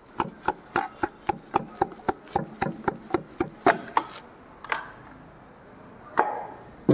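Rapid light tapping, about four taps a second for some four seconds, then a few single knocks: a piston being tapped down into its cylinder bore in a Hyundai i20 engine block during the rebuild.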